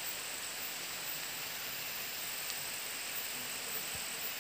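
Steady outdoor hiss of the forest undergrowth, with a thin, high, steady tone that drops out early and comes back past the middle.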